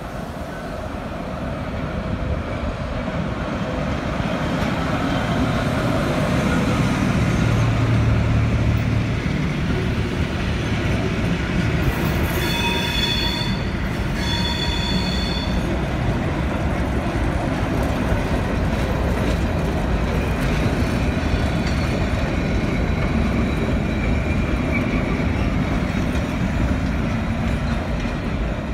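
A long train of old carriages and freight wagons rolling slowly past, with a steady rumble and clatter of wheels on the rails and some wheel squeal. Two short high-pitched whistle blasts sound about halfway through.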